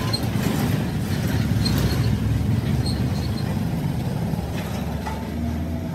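Motorcycle loader rickshaw's engine idling with a steady low rumble.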